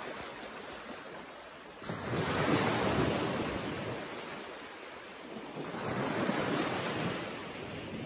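Small sea waves breaking and washing up a flat sandy beach, a steady rush of surf that swells twice: once about two seconds in and again about six seconds in.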